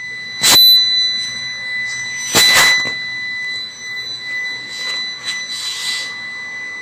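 UPS warning buzzer sounding one continuous high-pitched beep, the sign that its battery is worn out and can no longer hold a charge. Two loud knocks cut across it about half a second and two and a half seconds in.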